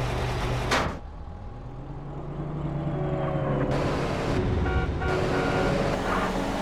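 A car engine running, with a short loud rushing burst just under a second in. After it the sound dips, then builds again with sliding changes in pitch.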